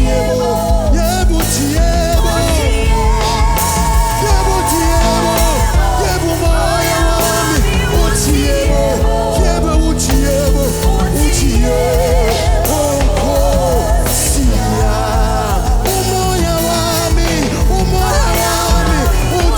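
Live gospel worship band playing a steady groove, with a beat and sustained bass notes under a wavering melody line with vibrato.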